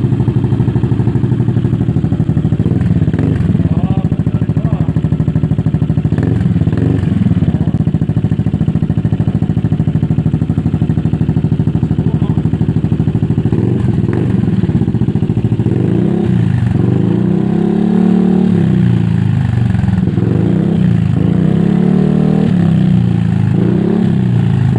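Kymco Xciting S400 scooter's single-cylinder engine running through a Remus aftermarket muffler with a bassy exhaust note. It idles steadily, then is revved and let fall back several times in the second half.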